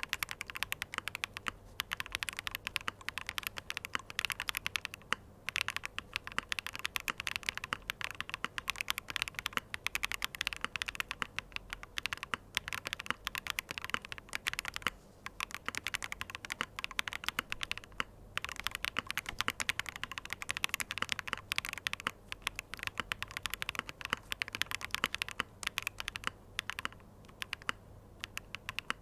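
Continuous typing on a ZOOM75 TIGA mechanical keyboard fitted with BSUN Snow Diane switches and Chemical 001 keycaps: a fast, dense run of key clicks with a few short pauses.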